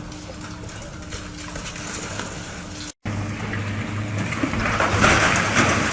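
Heavy machinery engine running steadily. About halfway there is a sudden cut to a louder stretch of engine hum with a rushing noise that swells near the end.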